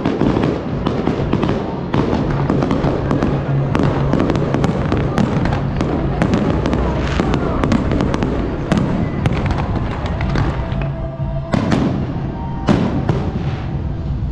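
Aerial firework shells bursting in a rapid, continuous barrage of bangs and crackling, with a few sharper, louder bangs near the end, over music.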